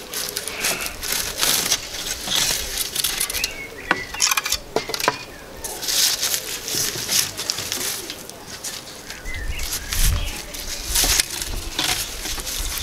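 Dry elder sticks being handled and shifted on a wooden bench: rustling, scraping and light wooden knocks, with a dull low bump about ten seconds in.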